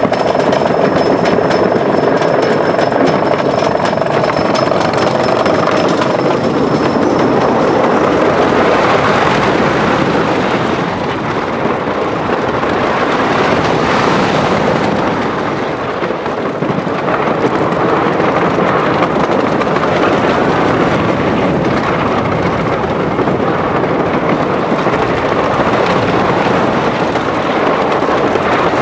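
Wooden roller coaster train running on its wooden track, a loud rattling rumble. For the first several seconds a steady whine with fast clicking runs under it, then gives way to a rushing noise that swells and dips.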